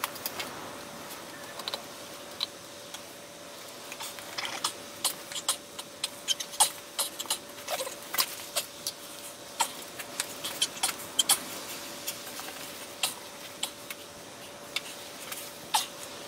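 Irregular small clicks, taps and knocks of metal and rubber parts as a motorcycle carburetor is worked by hand onto the engine's rubber intake insulators; the clicking grows busier a few seconds in. A faint steady hum runs underneath.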